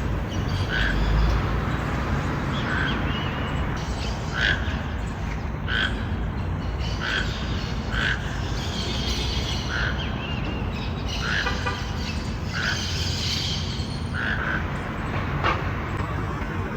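Toucan calling: a long series of short, hoarse calls repeated roughly once a second, over a steady low background rumble. Other birds chatter more faintly and higher in pitch in the middle stretch.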